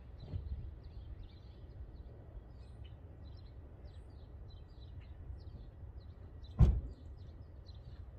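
Small birds chirping on and off over a low steady rumble, with one sharp knock about six and a half seconds in.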